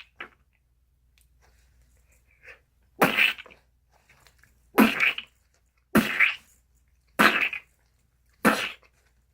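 Vocal imitation of a watermelon falling and smashing, made with the mouth: five short, sharp splattering bursts, one to two seconds apart.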